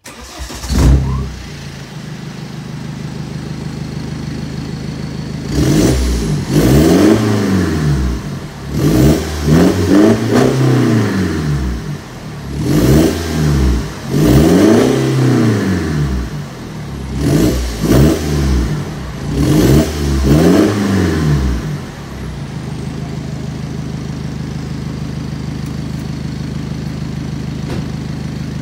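BMW E90's N47 2.0-litre four-cylinder turbodiesel, heard at its twin exhaust tailpipes, starting up with a brief flare and settling to idle. It is then revved in a series of short throttle blips, each rising and falling in pitch, before dropping back to a steady idle.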